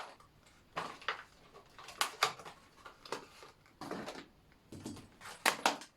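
Packaging being opened and the parts of a motorcycle tank-bag ring adapter handled: about eight light clicks and knocks, some in quick pairs, with faint rustling between them.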